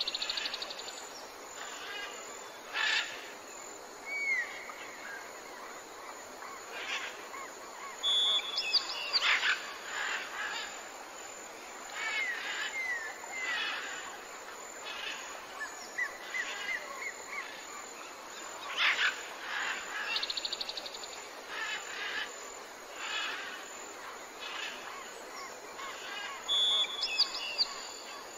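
Nature ambience of assorted small birds chirping and calling over a steady hiss, with short rising whistles and sharp calls every second or two. It is a looped background track: the same sequence of calls comes round again about 18 seconds later.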